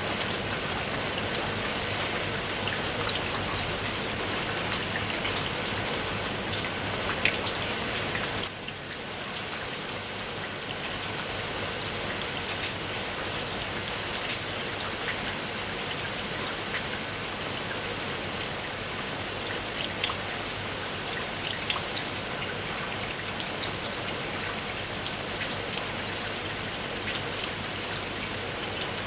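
Heavy rain falling steadily, a dense hiss of drops with scattered sharper drop ticks. It dips briefly in loudness about eight seconds in, then continues.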